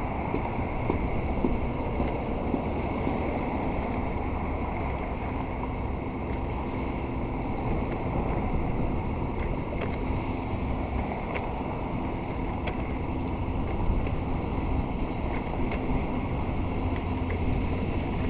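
Steady street traffic noise: vehicle engines and tyres running by, an even rumble with no single event standing out.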